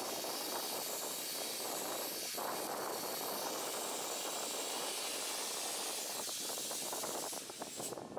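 JNR Class C11 steam locomotive letting off a steady hiss of steam, which cuts off sharply near the end.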